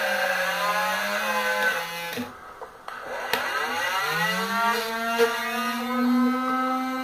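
Small 12-volt DC motor of a homemade mini bench drill whining, its pitch wavering, then winding down to a stop about two seconds in. After a click it spins back up with a rising whine and runs steadily.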